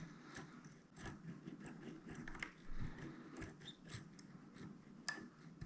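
Faint, irregular clicks and scraping of a DADA dimple pick working the pins inside a dimple lock cylinder under light tension, with one sharper click about five seconds in.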